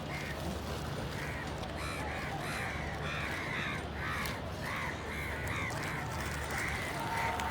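Several crows cawing, short harsh caws repeating and overlapping one another, over a steady low background hum.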